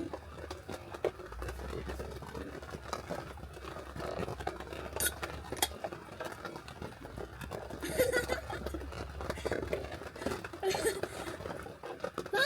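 Scattered light clicks and knocks over a low hum, with brief snatches of a voice and laughter.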